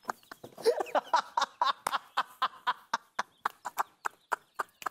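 A man laughing in a run of short ha-ha bursts through the first three seconds or so, over background music of even, dry percussive clicks about four a second.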